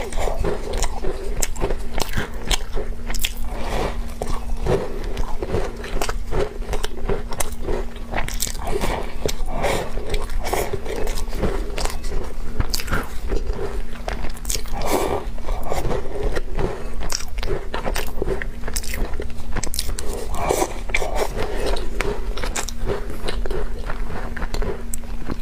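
Close-miked eating of crumbly walnut cookies: repeated crisp crunches and crackles of biting and chewing, going on without a break.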